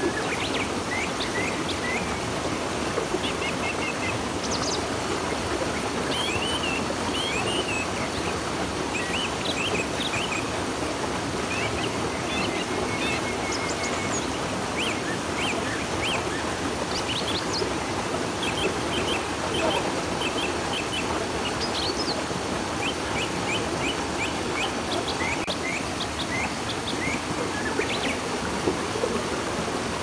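A river flowing steadily, with many small birds chirping over it in short, quick calls.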